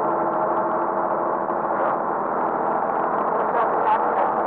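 Truck engine droning steadily on the move, a dense, even hum of many steady tones.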